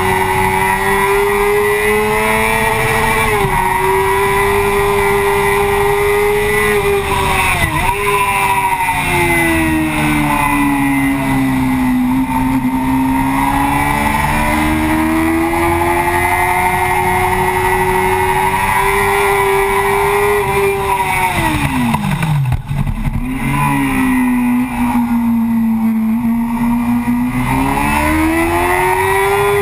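Yamaha FZ6's 600 cc inline-four engine running hard at high revs, heard from the fuel tank with wind rushing past. Its pitch sags and climbs through the corners, drops steeply about three-quarters of the way through and then climbs again.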